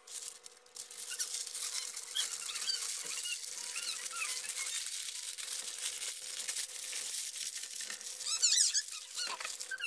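Baking paper rustling and crinkling as a sheet is spread over a tray and its edges are folded and crimped by hand, with a few short squeaks, the clearest cluster about eight and a half seconds in.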